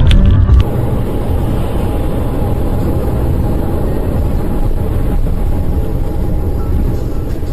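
Steady rumble of a car driving, heard from inside the cabin through a dashcam: engine and tyre noise on a wet, slushy winter road. Background music cuts off under a second in.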